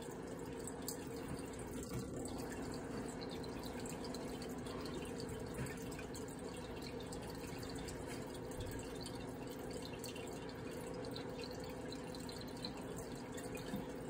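Microwave oven running: a steady hum, heard as playback through computer speakers.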